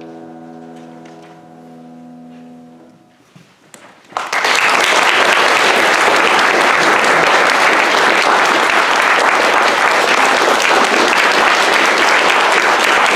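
A grand piano's final chord rings on and fades away over about three seconds. Then audience applause breaks out suddenly about four seconds in and continues steadily and loudly.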